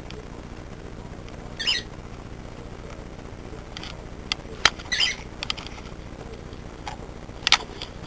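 Cockatiel giving three short, high chirps a few seconds apart, with several sharp clicks in between.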